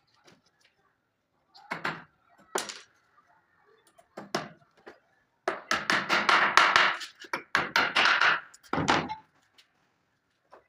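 Hammer blows on wood: three separate knocks, then a fast run of strikes, about four a second, and one last blow.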